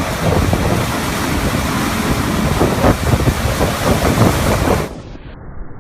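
Corn-harvesting machinery running with a steady low rumble, buffeted by heavy wind noise on the microphone. Near the end the sound drops sharply and turns muffled.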